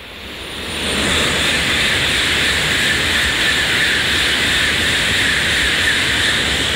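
Tokaido Shinkansen high-speed train passing through the station at speed without stopping: a loud rushing noise of wheels and air that builds over the first second, holds steady, and starts to fade near the end.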